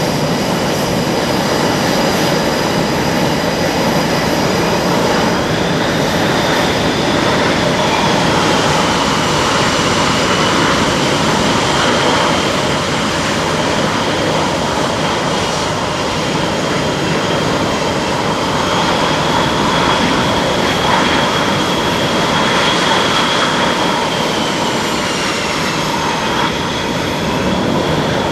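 Jet engines of Blue Angels F/A-18 Super Hornets running at taxi power as the jets pass one after another: a steady, loud jet rush with a high turbine whine that slides up and down in pitch.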